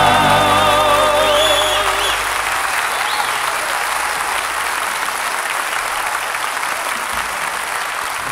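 The gospel quartet's final held chord, sung with vibrato over the band, ends about two seconds in, and the live audience applauds through the rest.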